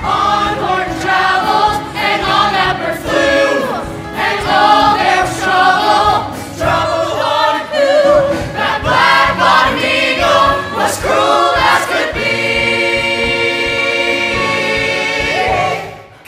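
A musical theatre cast singing as a chorus with accompaniment. About twelve seconds in they settle on a long held chord, which cuts off sharply just before the end.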